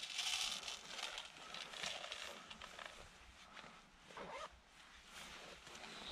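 Rustling and zipping of a backpack as snacks are packed away, loudest in the first second, then smaller rustles.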